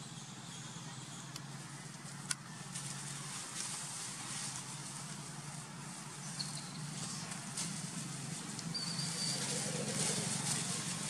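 A steady low engine-like hum under outdoor background noise, with two faint, brief high squeaks from young macaques, the longer one about nine seconds in.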